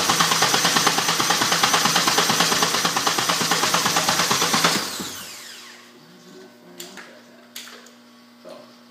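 Honda R18A four-cylinder engine being cranked over by its starter motor, a rapid pulsing of about eight beats a second under the starter's whine, until the key is released about five seconds in and it spins down. A couple of sharp clicks follow near the end.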